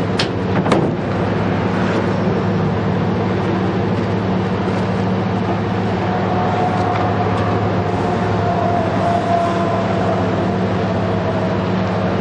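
AC magnetic-particle inspection yoke held against a steel locomotive part, humming steadily as it magnetizes the part to show up hidden cracks. Two sharp clicks come in the first second.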